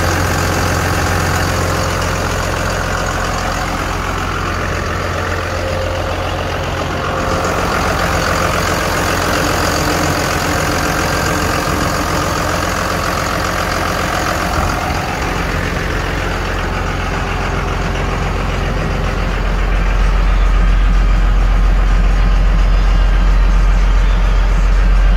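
Ford F700's 5.9 Cummins inline-six diesel idling steadily, heard first close up over the open engine bay and then from inside the cab, where the low rumble grows stronger in the last several seconds.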